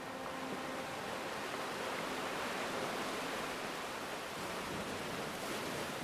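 Sea waves washing on a shore: a steady rushing wash that swells a little mid-way and eases toward the end.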